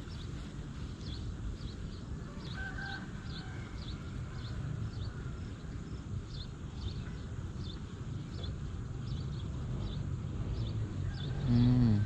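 Outdoor ambience over a low rumble: a bird's short, high chirp repeats about twice a second, with a brief two-note call about three seconds in. A man's voice hums briefly near the end.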